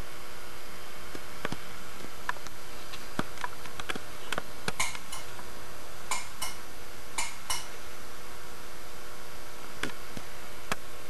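Jacob's ladder high-voltage rig arcing through a small Christmas light bulb: a steady electrical hum and hiss, broken by sharp ticks and clicks. The clicks cluster in the middle, several in quick pairs.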